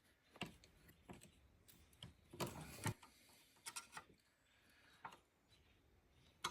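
Near silence broken by a few faint, scattered clicks and taps, with a short cluster about two and a half seconds in.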